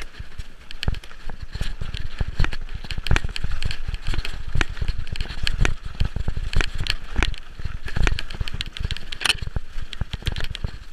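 Mountain bike rattling down a rough, leaf-strewn trail: a dense run of clicks and knocks from the bike jolting over bumps, with the tyres crackling through dry leaves. A low rumble, wind on the camera's microphone, runs underneath.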